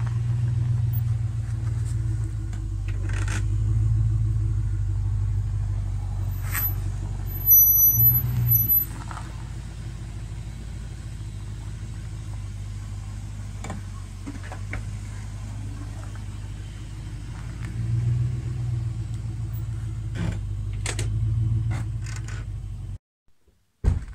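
Jeep Grand Cherokee's 4.7-litre V8 burbling at idle through its tailpipe, with a few brief blips of the throttle, about eight seconds in and again twice near the end.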